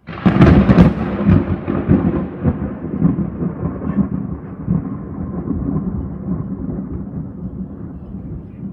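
Thunder: a sudden loud crack, then a long rumble that slowly fades.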